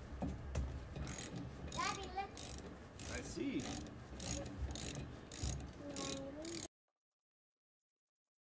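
Socket ratchet clicking in quick, even strokes, about three clicks a second, as it loosens and backs out a lawn mower's spark plug with a 5/8-inch spark plug socket. The sound cuts off suddenly near the end.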